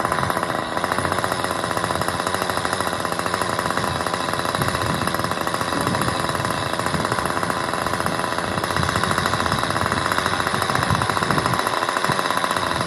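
A powered road-works tool running steadily, with a fast, even mechanical pounding that does not let up.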